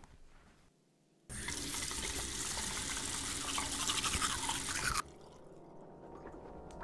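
Toothbrush scrubbing teeth, close and loud. It starts abruptly about a second in and cuts off sharply about five seconds in.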